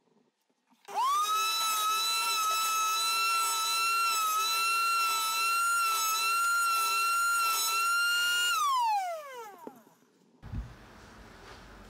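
Table-mounted wood router spinning up to a high, steady whine about a second in. It runs for some seven seconds while a 45-degree chamfer bit bevels the edges of a small oak block, then is switched off and winds down with a falling whine.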